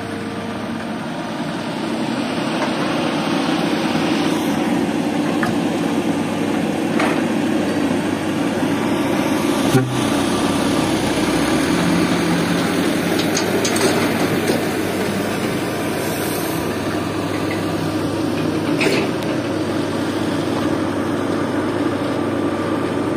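Diesel engine of a loaded Mitsubishi Canter dump truck running steadily, growing louder about two seconds in. A single sharp knock comes near the middle.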